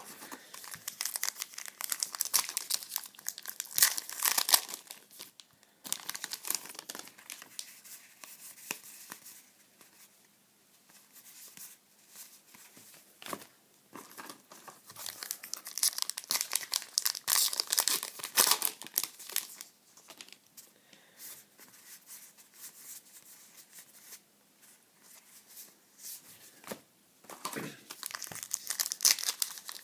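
Trading-card pack wrappers crinkling and tearing open, in several irregular bouts with quieter gaps between them.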